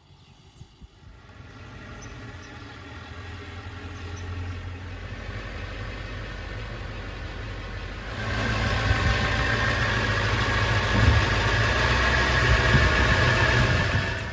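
Diesel semi truck engine running with a steady low rumble, getting louder over the first few seconds and jumping louder again about eight seconds in.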